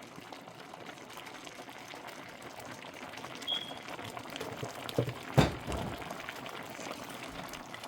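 Pot of plantain porridge bubbling steadily on the boil. Two sharp knocks about five seconds in, the second one the loudest.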